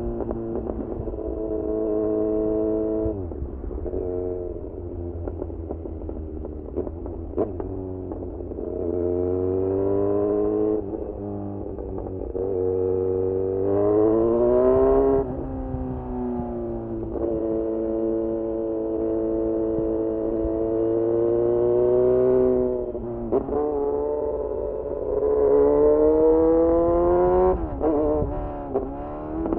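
Kawasaki Z900's inline-four engine through a full titanium SC-Project exhaust, revving up and easing off as the bike is ridden through the gears. The pitch climbs and then falls sharply several times, with quick dips and blips around the gear changes. It is heard muffled, from a recorder inside the rider's backpack.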